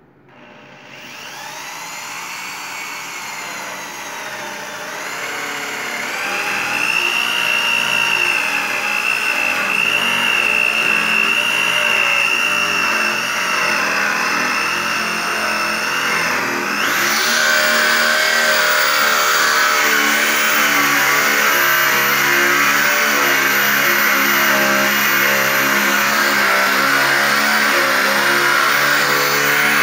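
Handheld electric drill boring a Euro hinge cup hole into wood. It spins up with a rising whine, holds steady, then about halfway through gets louder and rougher as the bit cuts, with the pitch wavering as the drill is rocked back and forth to keep the slow-cutting bit from going one-sided.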